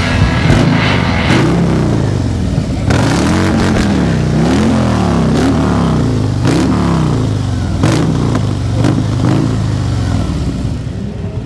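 Motorcycle engine revved up and down on the spot, about seven blips, each a quick rise and fall in pitch, through a Dr. Jekill & Mr. Hyde aftermarket exhaust with a full, deep sound.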